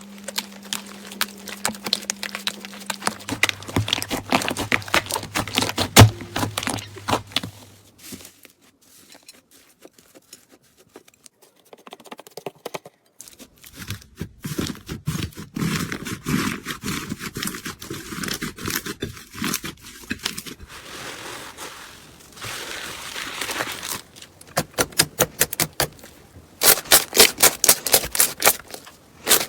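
Slime being squeezed, stretched and poked by hand, making sticky crackling and clicking pops across several short clips, with a fast run of pops, about four a second, near the end.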